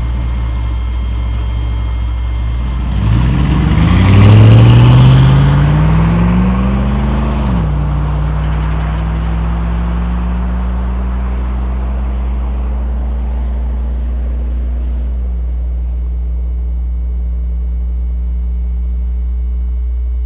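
Chevrolet Silverado's 5.3L LM7 V8 through a Cherry Bomb muffler, heard from inside the cab. About three seconds in the engine note climbs under acceleration, loudest around four to five seconds. The pitch drops at a gear change near eight seconds, climbs slowly, drops again at another shift near fifteen seconds, then the truck cruises steadily with a low drone.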